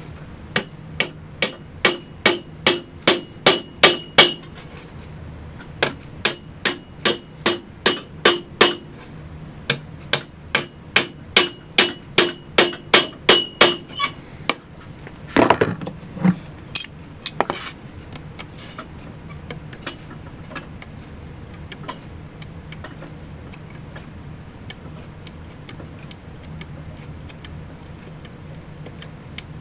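Hammer tapping nails through the basket's hinges on a metal jack stand: three runs of quick, even strikes, about two and a half a second, each with a short metallic ring. About fifteen seconds in comes one heavier knock and a few light clicks, then only a faint steady hum.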